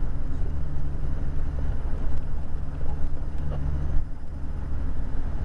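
Heavy truck's diesel engine pulling steadily at cruising speed, heard inside the cab as a constant low drone over tyre and road noise.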